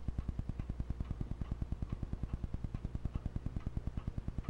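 8 mm film projector running: its mechanism clicks in a rapid, perfectly even rhythm, many times a second, over a steady low motor hum.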